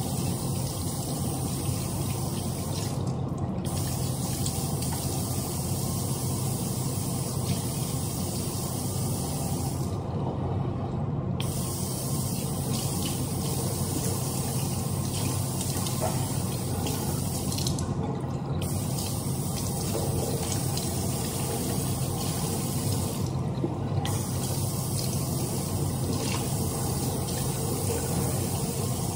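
Tap water running steadily into a kitchen sink while hands wash under the stream. The higher part of the hiss briefly drops out a few times.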